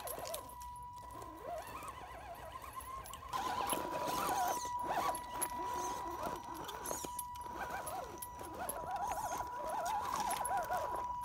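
Axial SCX10 RC rock crawler's brushed electric motor and gearing whining as it crawls over rocks: a steady high whine, with a wavering squeal that rises and falls with the throttle and gets louder after about three seconds. Tyres and chassis knock and scrape on the stones.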